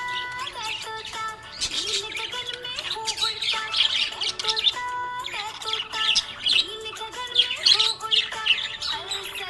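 Budgies chirping and chattering in busy, repeated bursts, over background music with held melodic notes.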